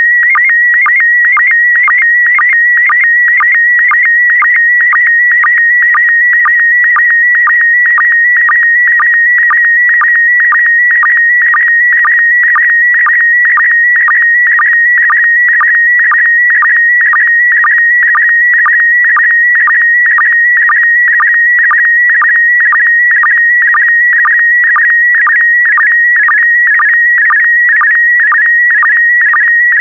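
Slow-scan television (SSTV) signal in PD120 mode: a steady electronic tone near 2 kHz with slight warbles, broken about twice a second by short dips lower in pitch. These are the sync pulses between scan lines as an image is sent.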